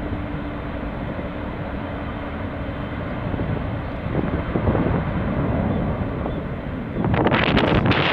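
Distant jet airliner engines giving a steady rush across the airfield. About seven seconds in, wind buffets the microphone and becomes louder than the engines.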